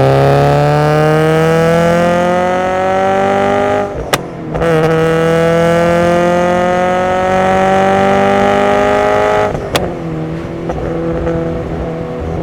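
Subaru BRZ's FA20 flat-four engine breathing through SARD individual throttle bodies, accelerating through the gears: the pitch climbs steadily, breaks with a brief sharp snap at an upshift about four seconds in, climbs again, and after a second snap near nine and a half seconds settles to a steadier, lower note.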